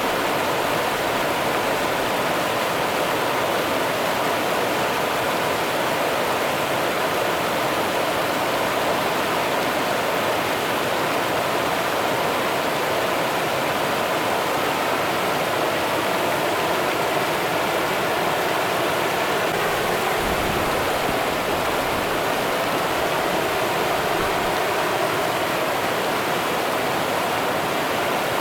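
Rio Grande river water running steadily over rocks, an even rushing noise with a brief low rumble about two thirds of the way through.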